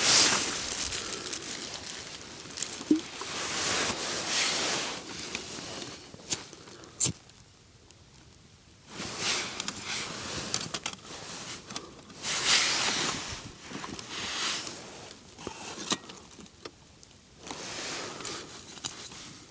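Rustling and handling noises from camping gear, coming in irregular swells, with a few sharp clicks.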